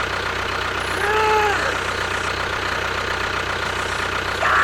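Engine running steadily at idle, a low even hum. A short pitched call, rising then falling, comes about a second in.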